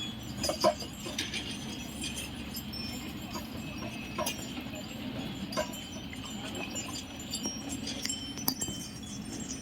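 Bells on working bullocks jingling and clinking irregularly as the animals move, a few sharp clinks standing out, over a steady low background noise.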